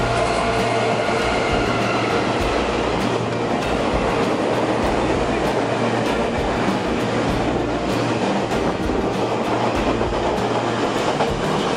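Taiwan Railways Chu-kuang express train, double-headed by electric locomotives E222 and E418, running through the station at speed without stopping: a loud, steady rush of wheels and coaches on the rails.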